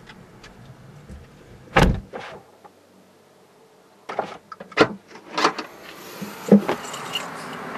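A heavy thump inside the car cabin, then a quick run of knocks and clicks, followed by a steady rushing noise that builds up over the last couple of seconds.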